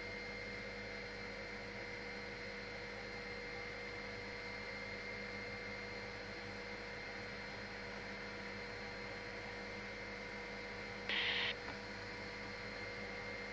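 Steady electronic hum and hiss with several fixed tones, typical of a helicopter's intercom audio feed. About eleven seconds in there is a single half-second burst of higher-pitched noise.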